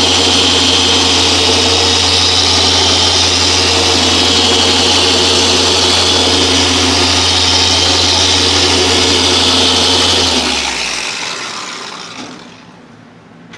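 Dual-action polisher running steadily with a foam pad on car paint, a low motor hum under a high hiss, switched off about ten seconds in and spinning down over a couple of seconds.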